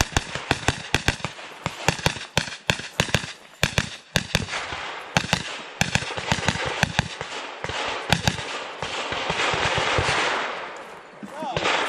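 Gunfire in a USPSA practical shooting stage: dozens of sharp shots fired in quick pairs and short strings, with brief gaps between target arrays. The shooting stops about eight and a half seconds in, followed by a steady rushing hiss.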